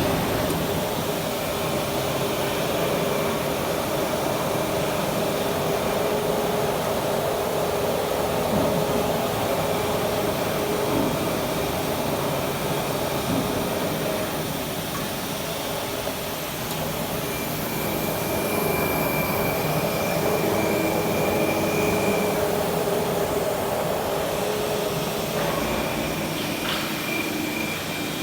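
Large knife grinding machine running: a steady motor and grinding noise with faint whining tones that come and go.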